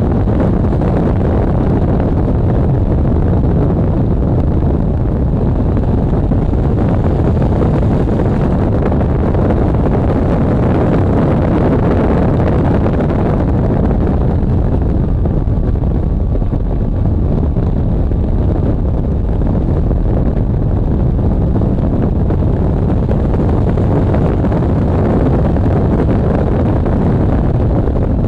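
A car at track speed heard through a microphone on its rear engine-lid grille: heavy wind buffeting with the car's running noise mixed in, a steady, dense rumble.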